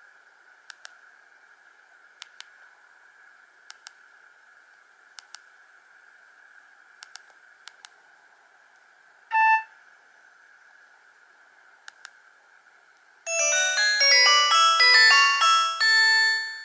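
Nokia 105 (2017) mobile phone: faint paired clicks about every second and a half, a short beep about nine seconds in, then from about thirteen seconds in one of its built-in ringtones begins, a quick run of bright electronic notes through the phone's small speaker.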